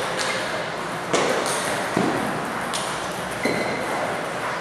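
Table tennis balls clicking off tables and paddles, four sharp clicks a little under a second apart over the steady background of a large hall where play goes on at many tables.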